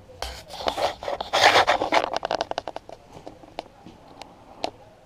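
Handling noise of a small action camera being grabbed and lifted: a loud stretch of scraping and rubbing right against the microphone, followed by a run of separate clicks and knocks that thin out toward the end.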